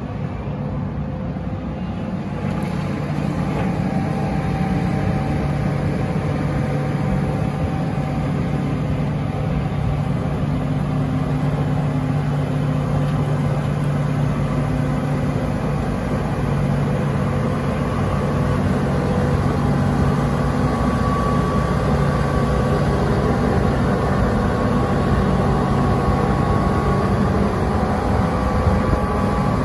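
Heavy diesel engines of a NICHIJO HTR265 rotary snowplow and a dump truck running together, a steady drone that slowly grows louder as the rotary starts loading snow.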